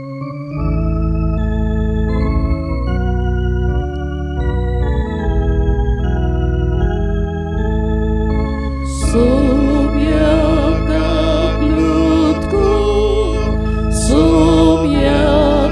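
Organ playing a slow introduction in held chords that change every second or so. About nine seconds in, singing with a wavering vibrato joins the organ.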